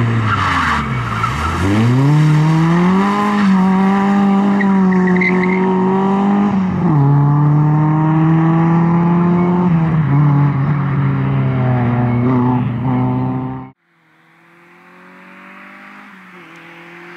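Opel Corsa rally car's engine revving hard through a slalom. The revs dip and climb again through a tight turn near the start, with a brief tyre squeal, then hold high. A sharp drop in pitch about seven seconds in marks an upshift. Near the end the sound cuts off abruptly and comes back much quieter, the car now farther away.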